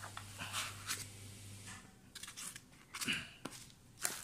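Cardboard box and its inner packaging handled and pulled open by hand: scattered rustles, scrapes and small taps, over a low hum that stops about two seconds in.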